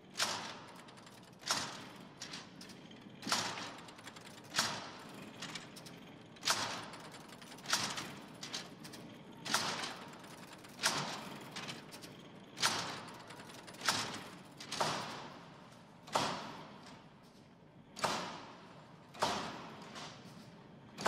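Charles Babbage's difference engine being hand-cranked: its brass figure wheels and levers give a metallic clunk about every one and a half seconds, each ringing briefly, with smaller knocks between. Each cycle of clunks is the machine working through the simple additions by which it computes successive values of a polynomial with the method of differences.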